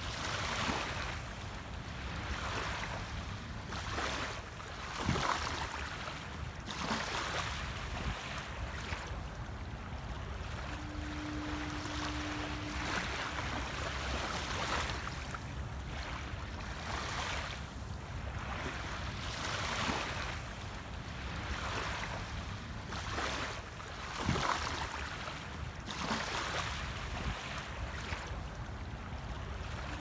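Small waves lapping and washing up onto a sandy beach, swelling and falling back every few seconds over a low, steady rumble of water.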